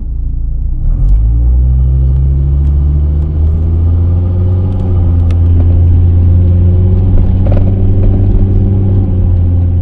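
Hummer H3 engine and road noise heard inside the cabin while driving: a loud, steady low drone whose pitch climbs for a couple of seconds as the vehicle picks up speed, then holds.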